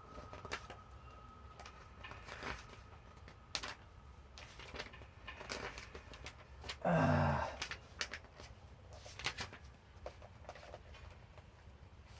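Plastic Lego bricks and parts clicking and rattling lightly as they are handled, in scattered small clicks. About seven seconds in a short low vocal sound falling in pitch cuts in.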